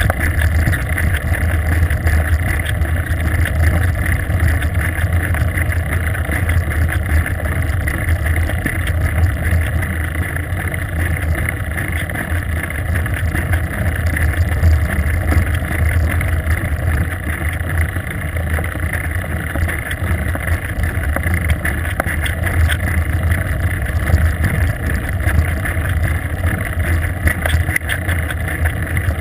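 Steady wind and rolling road noise picked up by a GoPro camera mounted on a moving bicycle. It is a continuous low rumble with no breaks.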